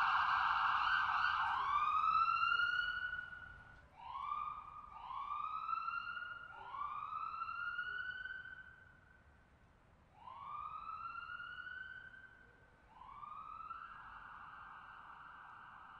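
Police siren sounding in a series of rising swoops. Each climbs and then holds. A steady held tone comes at the start and again near the end, and the siren grows fainter as it goes on.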